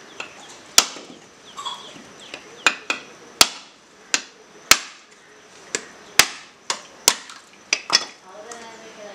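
Machete striking whole coconuts held in the hand, cracking the shells open into halves for copra: about a dozen sharp knocks at an irregular pace of one or two a second.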